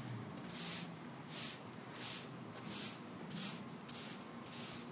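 Broom sweeping sand in regular strokes, one swish about every two-thirds of a second.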